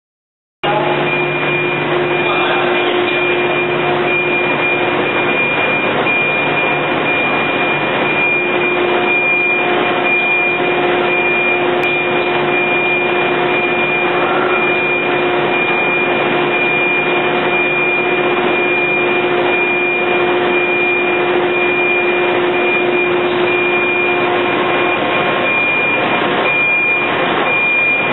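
Steady running noise of thin-film solar panel production-line machinery with roller conveyors, starting about half a second in: a dense hiss with a constant high whine and a lower hum, the hum dropping out near the end.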